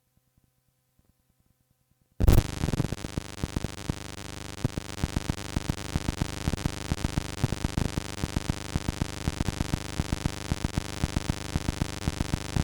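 Electrical mains hum with static hiss and frequent crackling pops on a cassette tape recording, starting abruptly about two seconds in after near silence.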